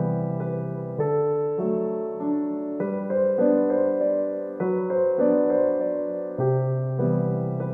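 Background piano music: single notes and chords struck every half second to second, held and fading between strokes.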